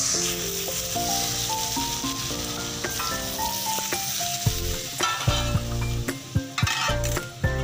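Hot ghee with green cardamom poured into carrot halwa in a steel kadhai, sizzling strongly as it hits the grated carrots, the sizzle loudest in the first few seconds. A few knocks and clinks of the metal pan and spatula come in the second half.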